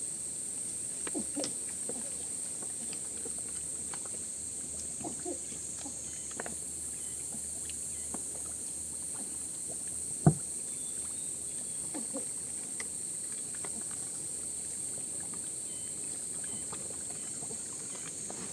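Steady high-pitched insect chirring, typical of crickets, with scattered light knocks and clatters, and one sharp thump about ten seconds in.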